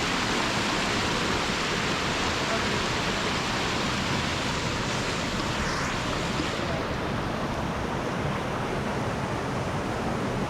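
Waterfall and stream water rushing steadily, a dense even hiss. The highest part of the hiss dulls a little about two-thirds of the way through.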